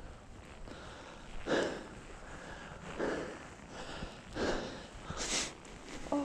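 Heavy, noisy breathing of a hiker climbing a steep trail: puffs of breath about every one and a half seconds.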